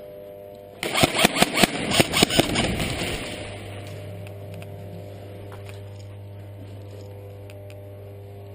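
Airsoft fire: a sudden burst of rapid, sharp pops starting about a second in, lasting about two seconds, then trailing off into a fading hiss.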